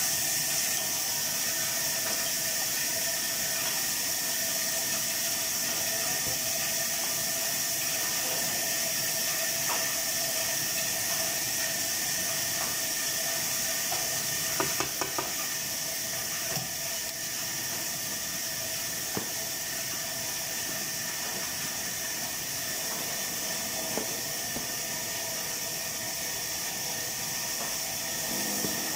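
Steady hiss of chicken sizzling as it cooks, with a faint steady whine under it and a few small crackles about halfway through.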